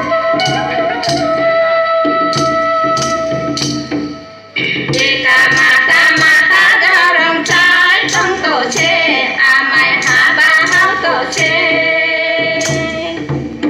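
Folk dance music with a double-headed hand drum keeping a steady beat under a held, sustained melody line; about four and a half seconds in, singing comes in and the drum strokes grow denser.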